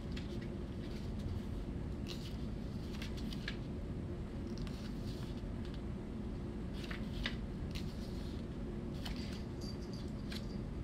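Pages of a small paper guidebook being handled and turned, with soft rustles and scattered light ticks over a steady low room hum.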